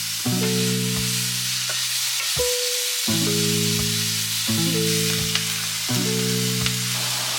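Noodle stir fry sizzling steadily in a hot pan, with background music of held chords that change every second or so.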